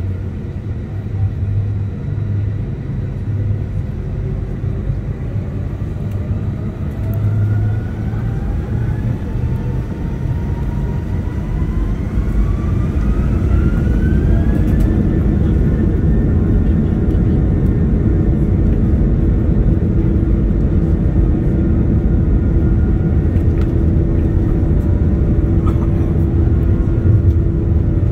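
Jet airliner engines spooling up: a whine rises steadily over several seconds, then holds at a steady pitch, with the deep rumble growing louder and staying loud, as at takeoff thrust.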